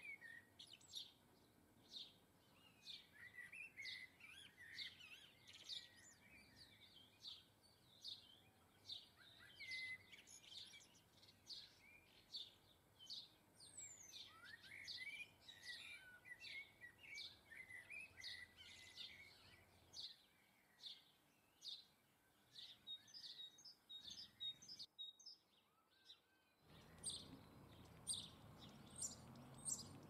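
Small garden birds chirping and twittering faintly, a steady run of short high chirps with bursts of warbling song. Low background noise rises near the end.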